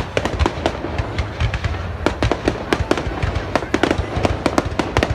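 New Year fireworks going off: a dense, irregular run of sharp bangs and crackles, several a second, over a low rumble.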